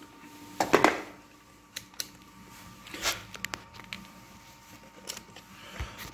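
Scattered sharp clicks and light knocks from handling a handheld digital multimeter on a concrete floor. The loudest pair comes about a second in, and a dull thud follows near the end.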